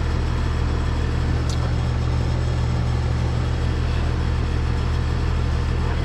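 Carrier heat pump outdoor unit running in heat mode: a steady low hum from the compressor and condenser fan. It runs on without short cycling.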